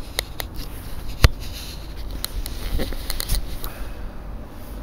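Handling noise on a camcorder's built-in microphone as it is turned in the hand: scattered clicks and light rustles, with one sharp knock about a second in and a cluster of clicks near the end, over a low rumble.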